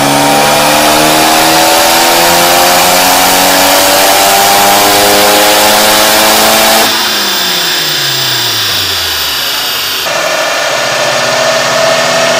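Mitsubishi Eclipse engine making a run on a chassis dynamometer, its pitch rising steadily as it accelerates under load. About seven seconds in it winds down with falling pitch. Near the end a different engine idles steadily.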